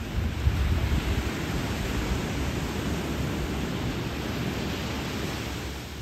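Small ocean waves breaking and washing up a sandy beach, a steady rushing surf that swells louder about half a second in as a wave breaks.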